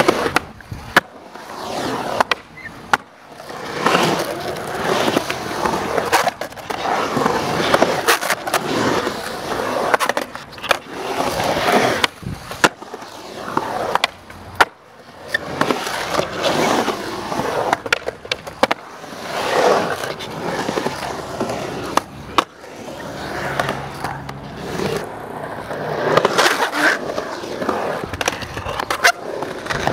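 Skateboards rolling on concrete ramps and banks, the rolling noise swelling and fading as the skaters carve. It is broken every few seconds by sharp clacks of boards popping and landing.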